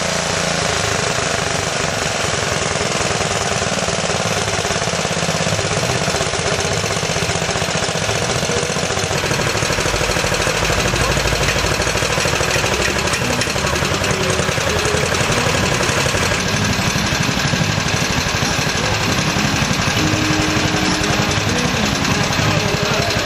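Small Zatut tractor's engine running with a rapid, steady chugging beat.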